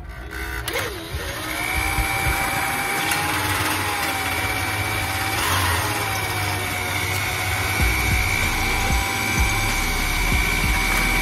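A motor spins up about a second in, then runs steadily, its pitch wavering slightly.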